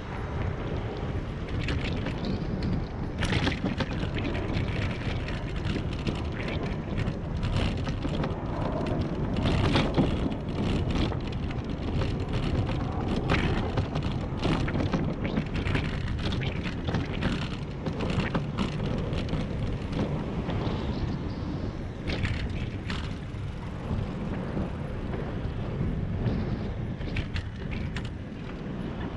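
Ride noise from a bicycle rolling along a cycle path: steady wind rumble on the microphone and tyre noise, with frequent short rattles and knocks as it runs over pavers and bumps.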